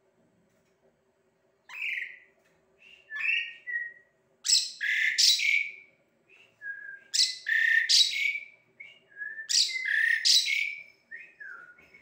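Asian pied myna (jalak suren) singing. A few short whistled notes open the song, then a loud phrase of two harsh notes with lower whistles around them is given three times.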